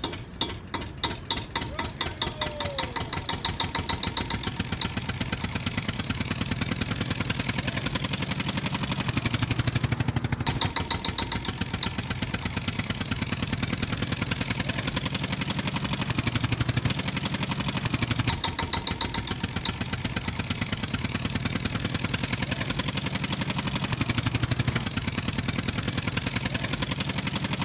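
Tractor engine running steadily with a rapid, even putter that swells a little now and then.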